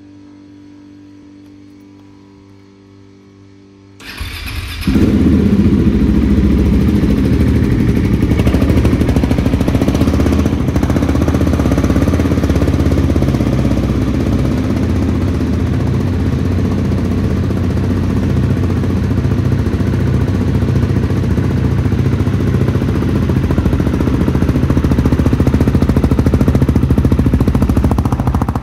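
2019 KTM 690 SMC R's single-cylinder engine cold-started through an FMF 4.1 exhaust and titanium header with no dB-eater or catalytic converter, so it is effectively straight-piped. A brief crank about four seconds in, then it catches and runs loud and steady.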